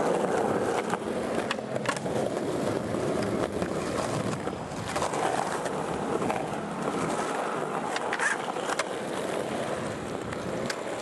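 Skateboard wheels rolling over rough concrete, a steady gritty roll broken by scattered clicks and knocks from the board, with a short cluster of them a little past the middle.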